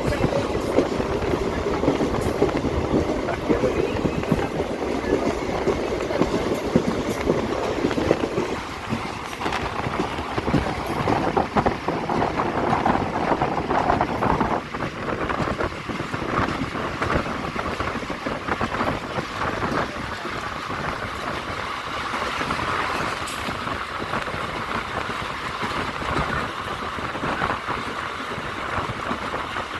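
Passenger train running, heard from on board: a steady rumble of wheels on rail with rushing air. The noise changes character about eight seconds in.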